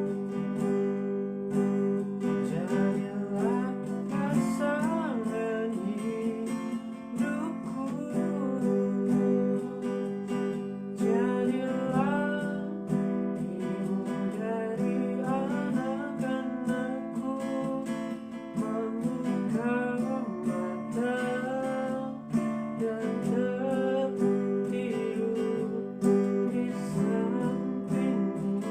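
Music with guitar: sustained chords underneath and a melody that slides up and down in pitch above them.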